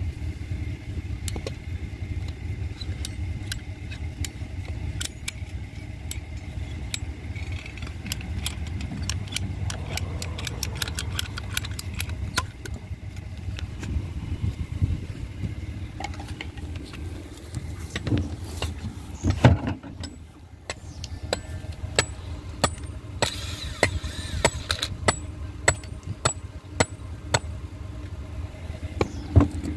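A steady low rumble with many scattered sharp clicks and light knocks; a few louder knocks come about two-thirds of the way in.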